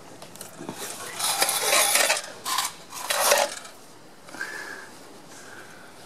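Metal hand tools clinking and scraping in three bursts: a longer one about a second in, then two shorter ones before the middle.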